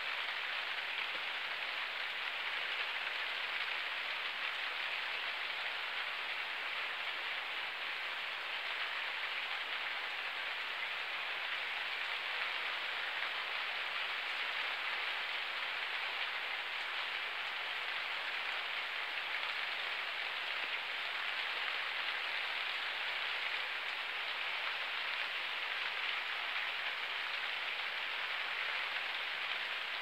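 Steady rain falling on rooftops and outdoor surfaces, an even hiss with no let-up.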